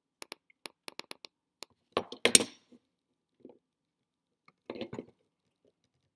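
Quick light plastic clicks as fingers work the rear license-plate clip on a die-cast model car body, then a sharp plastic crack about two seconds in as the clip is pushed in. Softer handling sounds follow near the end.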